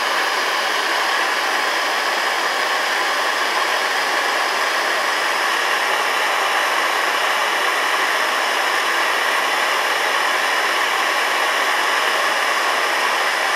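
Handheld gas torch burning with a steady hiss, its flame heating a clogged 3D-printer extruder nozzle toward red hot to burn the plastic out of it.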